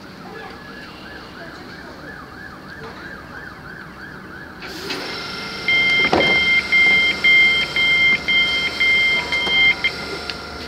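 Train door warning alarm sounding as the doors close: a loud run of about eight two-note electronic beeps, roughly two a second, starting about halfway through. Before it, a faint warbling tone over the hum of the stationary electric train, and a thump as the beeping begins.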